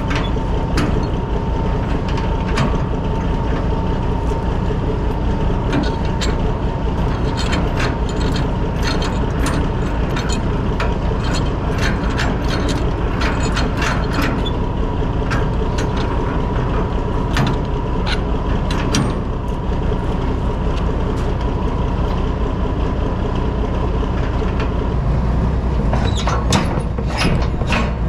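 Truck engine idling steadily. Over it comes a run of sharp metallic clicks and clatter from working the hitch with a kingpin puller, bunched in the middle and again near the end.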